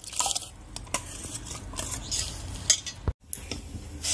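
A steel ladle scrapes and clinks against a steel bowl and pot as soaked rice is tipped into milk and stirred in, with scattered sharp metal clicks.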